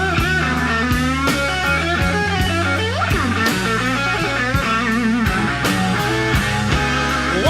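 Live slow-blues band: an electric guitar plays a lead fill with wide vibrato and a bent note about three seconds in, over bass and drums.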